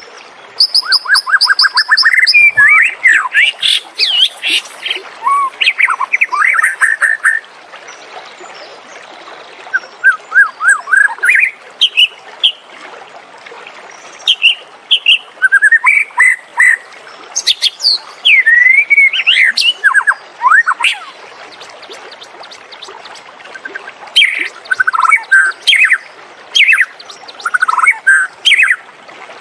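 White-rumped shama singing: a varied song of rapid note trains, quick up-and-down whistles and sharp chips, delivered in phrases of one to three seconds with short pauses between them.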